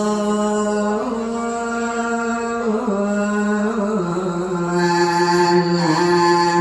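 A male voice singing Thai lae for a tham khwan nak ordination blessing, in long held notes that step between pitches about once a second.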